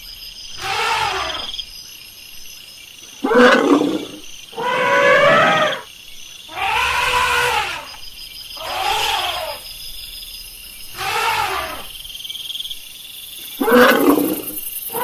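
Elephant calling again and again, about seven calls spaced a second or two apart, each rising and then falling in pitch.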